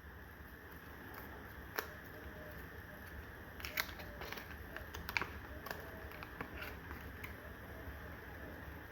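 Scattered light clicks and crackles over a steady low hum: kitchen handling while Maggi seasoning is added to a stew.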